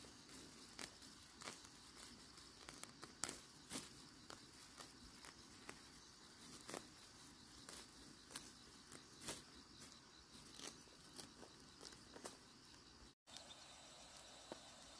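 Small weeds being pulled up by hand from dry ground: a string of short rustles and snaps, roughly one or two a second, over a faint, steady, high insect drone.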